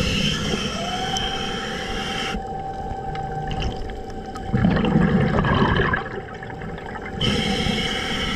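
A scuba diver breathing underwater through a regulator: a hissing inhalation, a burst of exhaled bubbles rumbling about halfway through, then another hissing inhalation near the end, over a steady low hum.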